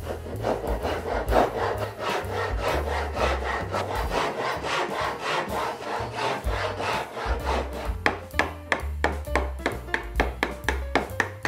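Japanese pull saw cutting into softwood in quick, even rasping strokes. About eight seconds in it gives way to a chisel chopping out the waste, a run of sharp knocks.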